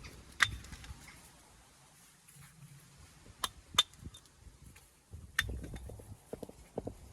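Sharp clacks of stone knocking on stone during dry stone wall work: four hard strikes with a short ring, the second and third close together. After the last one come soft scuffs and low thuds.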